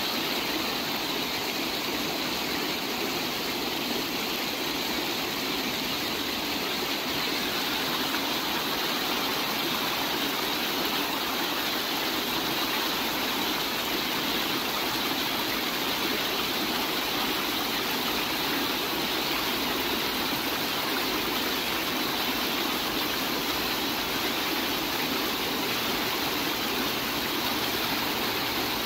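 Shallow rocky river rushing over stones and small rapids: a steady, even rush of water.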